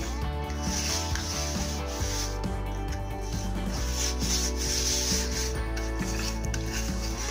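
Fingers rubbing butter around the inside of a metal cake mould, a swishing rub of skin on greased metal in repeated strokes.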